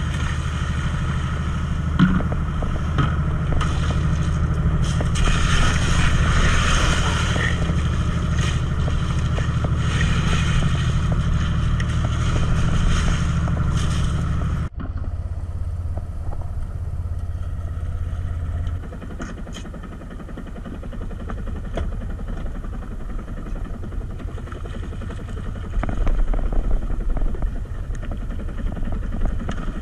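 Fishing boat's engine running steadily under way, with wind and water rushing past. About halfway through the sound cuts off sharply, and the engine carries on quieter, dropping lower again a few seconds later.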